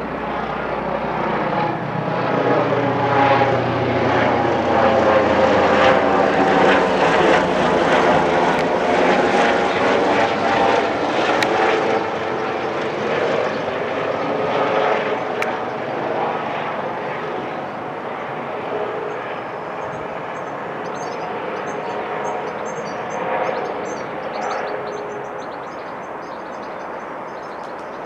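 Helicopter passing overhead: the rotor and engine noise grows louder over the first several seconds, peaks, then slowly fades as it flies away.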